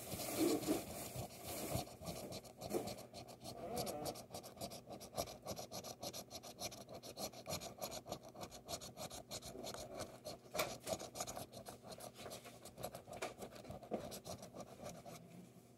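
A coin scraping the scratch-off coating from a paper lottery ticket in quick, repeated short strokes.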